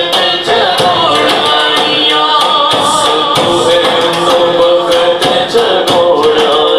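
Male voices singing a Punjabi Islamic devotional song (kalam) through microphones, with a second voice joining in, over a steady percussion beat.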